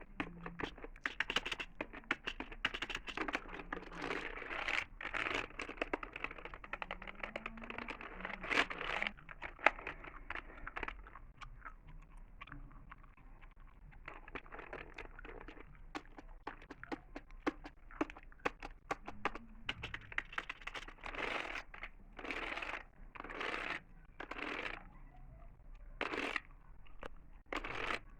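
Close-miked ASMR gum chewing and computer keyboard tapping: irregular crisp clicks mixed with short bursts of wet mouth noise.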